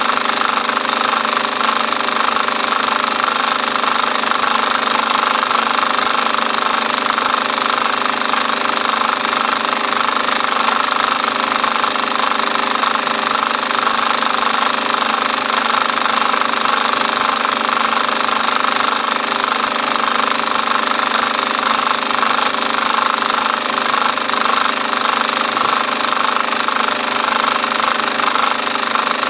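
Film projector running steadily, its mechanism giving a continuous loud clatter.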